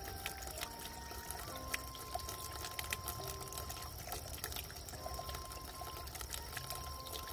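Water trickling and splashing steadily, under faint background music of slow, held notes.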